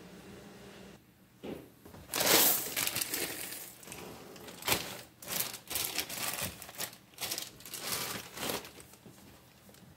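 Crinkling and rustling in an irregular string of bursts lasting several seconds, loudest about two seconds in.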